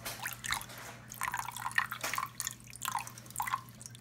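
A small wire whisk stirring a runny mix of school glue, water and red food colouring in a bowl: irregular wet splashing and clicks, several a second.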